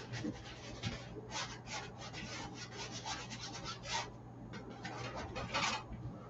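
Paintbrush stroking and scrubbing paint onto a stretched canvas: a run of quick short strokes, a brief pause, then a longer stroke near the end, over a steady low hum.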